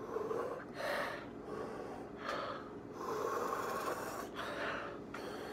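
A man breathing hard, blowing out a run of heavy breaths through pursed lips, his mouth burning from spicy hot chips and hot sauce.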